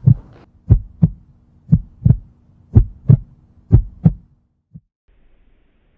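Heartbeat sound effect: four double thumps (lub-dub) about a second apart over a faint steady hum, then a single fainter thump, after which it goes quiet.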